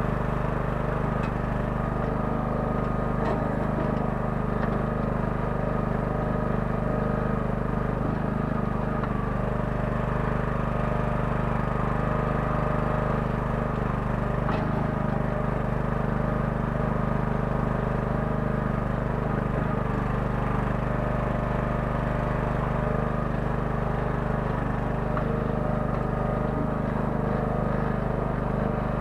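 Kellfri towable mini excavator's small 9 hp engine running at a steady speed, with a few faint clicks near the start and about halfway through.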